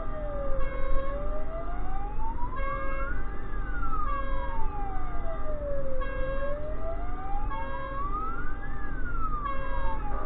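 Emergency vehicle wail siren sounding from the vehicle itself, sweeping slowly up and down in pitch, about five seconds per rise and fall, with short bursts of a second multi-tone signal now and then. Underneath is the steady rumble of the truck's engine and tyres.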